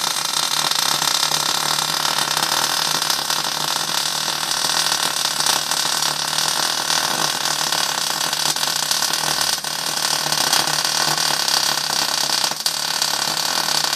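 MIG welding arc burning continuously as the torch lays one long bead on steel: a steady, loud hiss with a low hum.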